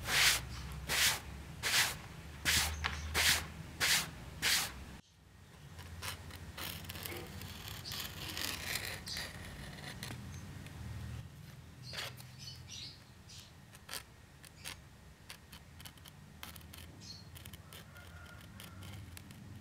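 About seven evenly spaced swishing strokes over the first five seconds. After a sudden cut, a craft knife cuts full-grain vegetable-tanned cowhide on a cutting mat, giving faint scratchy scraping with small clicks.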